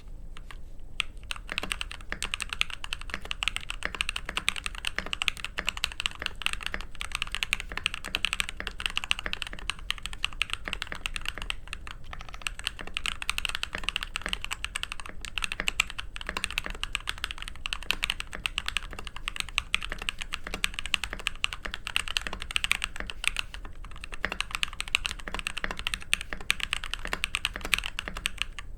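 Continuous fast typing on a Mode SixtyFive mechanical keyboard with lubed Tecsee Porcelain Blue linear switches, a copper plate and DSA keycaps: a dense run of quick keystroke clicks with no pauses longer than a moment.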